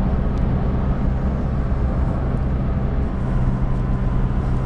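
Pickup truck driving at steady speed, heard from inside the cabin: a steady engine and road hum with a steady low drone that becomes plainer about three seconds in.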